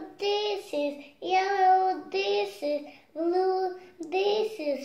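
A young girl singing a simple tune, a string of short phrases on held, steady notes with brief breaks between them.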